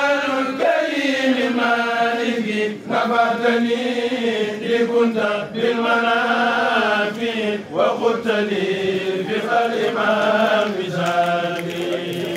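A kourel, a group of men, chanting a khassida, a Senegalese Sufi devotional poem, together in long, wavering melodic phrases of two to three seconds each, with short breaks between them.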